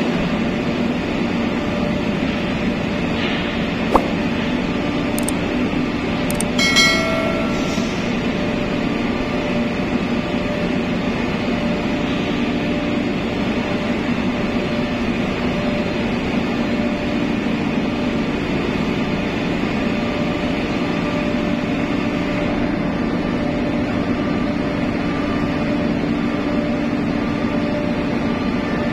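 Steady drone of a ship's machinery on an enclosed ferry vehicle deck. There is one sharp click about four seconds in and a brief high-pitched tone around seven seconds.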